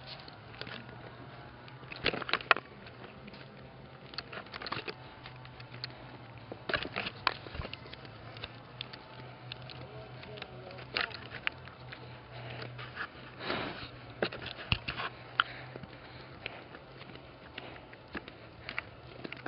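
Irregular footsteps crunching on a dirt and gravel path, mixed with knocks from a handheld camera, over a low steady hum.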